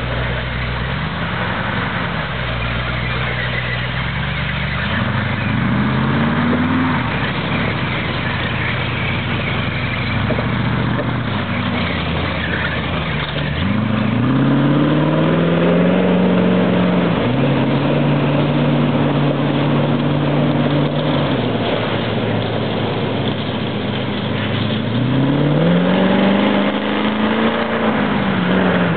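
Full-track swamp buggy's engine running under changing throttle, revving up and easing off several times, held at higher revs for several seconds around the middle.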